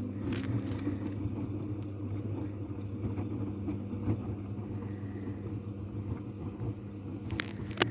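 AEG washing machine running, its motor giving a steady low hum, with a few short clicks or knocks, one about halfway and two near the end.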